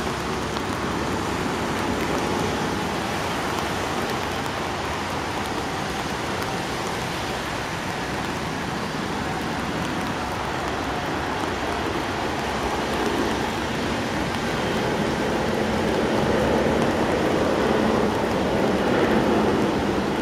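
Boeing 747-400 jet airliner on final approach, a steady rushing roar of its engines that grows louder in the second half as the aircraft comes nearer.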